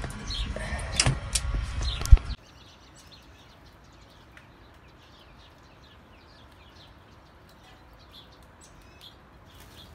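A glass storm door being opened and handled, clattering and clicking, then a sharp thump about two seconds in as it shuts. The sound then cuts off abruptly to a faint background with scattered small high chirps.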